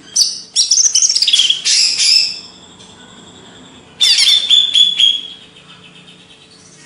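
Cucak ijo (green leafbird) singing in two loud bursts of rapid, sliding high whistled notes, the second starting about four seconds in.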